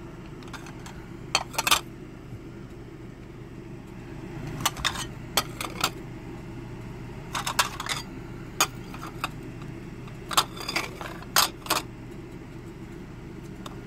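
Royal Winton china saucers clinking against each other and the tabletop as they are handled and turned over. Short, sharp, ringing clicks come in small clusters, over a steady low hum.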